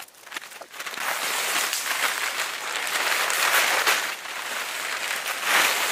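Tent fabric and plastic bag rustling and crinkling as a large tent is pulled out of its bag and spread out, starting about a second in and carrying on densely with small surges.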